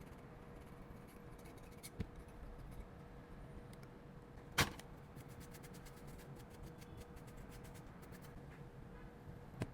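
Faint clicks and taps of small repair tools and parts on a phone being worked on, with one sharper click about four and a half seconds in, over a faint steady hum.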